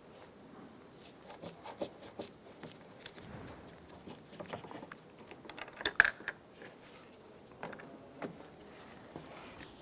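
Phillips head screwdriver backing the center screw out of a truck's interior door handle bezel: scattered small clicks and scrapes, with a louder pair of clicks about six seconds in.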